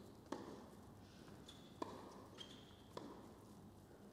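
Tennis rally: three sharp ball strikes about a second and a half apart.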